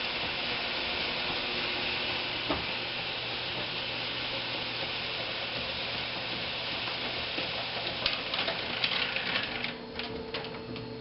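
Motorized rolling metal security shutter closing: a steady rattling whir of the slats running down, with a low motor hum. Near the end it breaks into a series of clicks and knocks as it comes to a stop.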